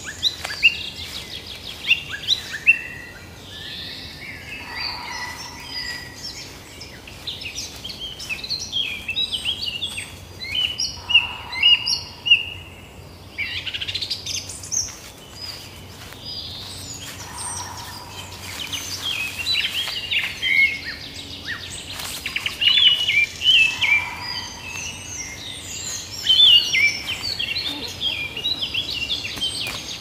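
Forest songbirds chirping and singing in a busy chorus of short, high notes and trills, with a soft lower call repeating about every six seconds.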